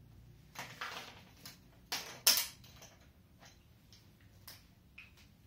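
Handling noises at a whiteboard: two short rustling scuffs about one and two seconds in, the second the louder, then a few faint ticks.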